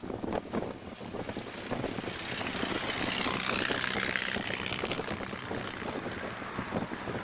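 Ford Model T's four-cylinder engine running steadily at road speed in an open car, under heavy wind noise on the microphone. A rush of noise swells about three seconds in and fades again about two seconds later.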